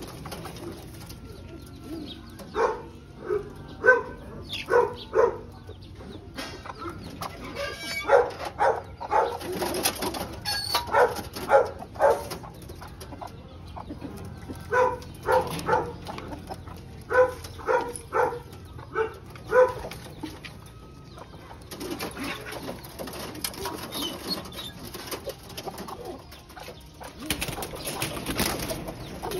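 Young pigeons in a wire loft cooing in short repeated calls, several in a row at a time. Flurries of wing flapping and rustling come about a third of the way in and again near the end.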